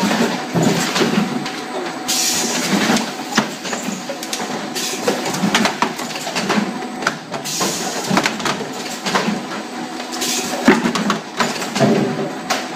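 Automatic plasticine cup packing machine running, with a steady clatter of many short clacks and knocks. Two long bursts of hiss come and go, each a few seconds apart.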